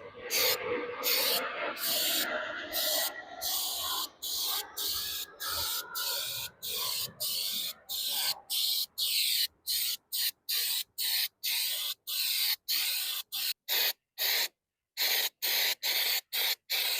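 Aerosol spray can of undercoating being sprayed in quick short bursts, about two to three hisses a second with brief gaps between them.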